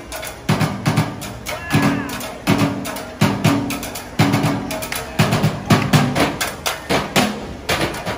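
Live drum troupe playing: a busy beat of sharp strikes over repeated deep drum tones.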